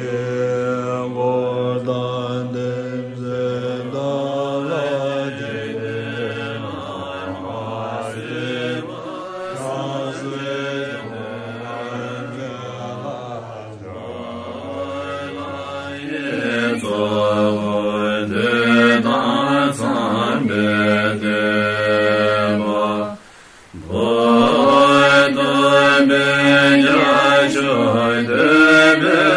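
Group of Tibetan Buddhist monks and practitioners chanting a prayer together in long, held tones. About three-quarters of the way through, the chant breaks off for about a second, then resumes louder.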